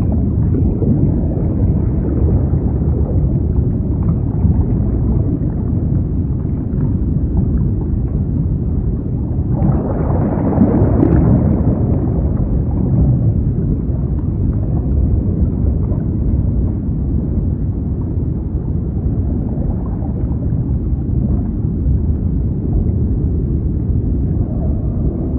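Underwater ambience: a continuous low, muffled rumble of water that swells louder and brighter about ten seconds in for a few seconds, then settles back.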